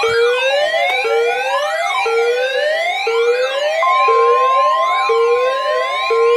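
Several electronic sirens layered over one another, each sweeping up in pitch and snapping back about once a second. A steady high alert tone joins a little past halfway and cuts off suddenly, consistent with the NOAA Weather Radio 1050 Hz tone used in the weekly receiver test.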